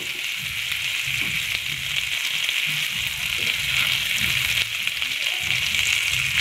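Large river prawns on bamboo skewers sizzling in hot oil in a frying pan, a steady hiss.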